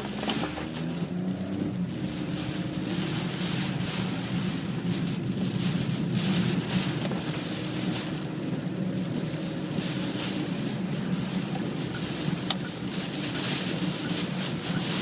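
Storm wind and rain during a violent-wind warning. Gusts repeatedly buffet the microphone over a steady low hum.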